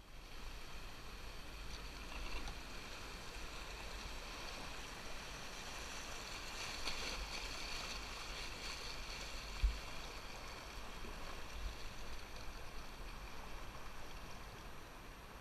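River water rushing and splashing along a loaded canoe's hull as it runs a fast riffle, loudest about seven to nine seconds in, then easing. A dull low thump sounds once about ten seconds in.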